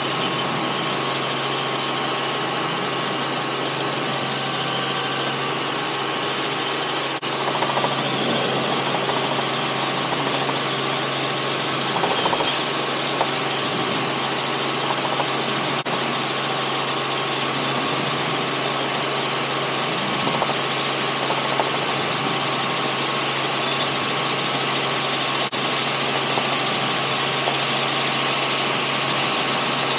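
Robinson R44 helicopter in steady powered flight heard from inside the cabin: the carbureted six-cylinder Lycoming engine and rotors run with a constant drone, slightly louder from about seven seconds in.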